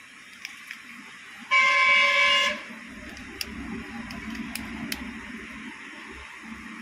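A vehicle horn honks once, a steady buzzy tone lasting about a second, loud over the shop's room sound. A low rumble follows, and a few small clicks come from the plastic phone parts being handled.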